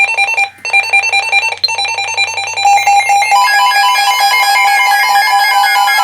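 Emergency alert tones from an alert receiver, announcing a severe thunderstorm warning: a loud, rapidly pulsing two-note electronic alarm. About three and a half seconds in, steadier layered tones join it, followed by a slowly falling siren-like sweep.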